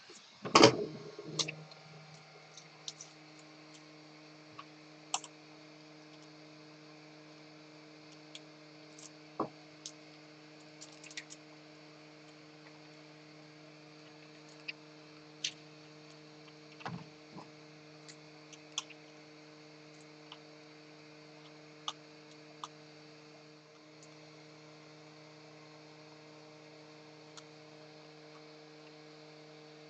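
Steady hum of a hot-air gun, with scattered small clicks and ticks as a screwdriver tip works the keyboard's Mylar membrane off the circuit board. There is a louder clatter about half a second in.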